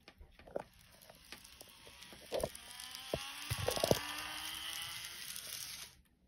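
Model electric train of a JR West 225 series running past on its track: the motor's whine rises in pitch and the running hiss grows louder, with several clicks and knocks. It cuts off suddenly about six seconds in.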